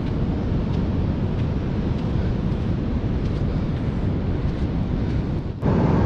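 Wind buffeting the microphone: a steady low rumble of noise. About five and a half seconds in it cuts off abruptly and a louder rush of wind and breaking surf takes over.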